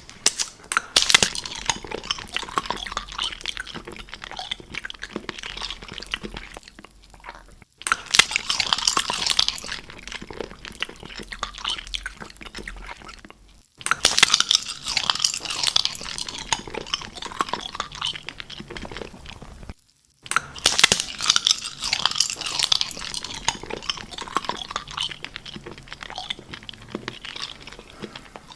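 Close-up crunchy biting and chewing, in four takes cut one after another, each opening with a loud crunch and followed by a run of smaller crackles.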